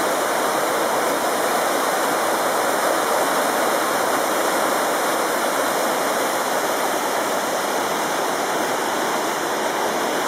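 Waterfall rushing steadily, whitewater tumbling over rocks into a churning pool.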